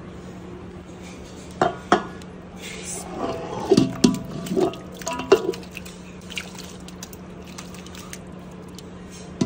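Chicken curry being tipped from a cooking pot onto rice in another pot: wet splats and plops of meat and gravy with clinks of the spoon and metal pots, mostly between about one and a half and five and a half seconds in, over a steady low hum.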